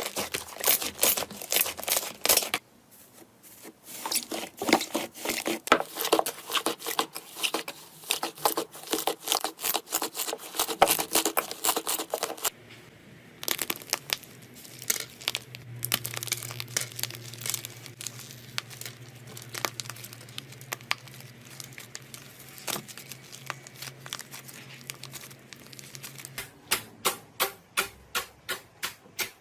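Slime being squeezed and pressed by hand, giving dense crackling and popping clicks. In the middle it goes quieter and softer over a low steady hum, and near the end it turns into a fast, regular run of pops, about three or four a second.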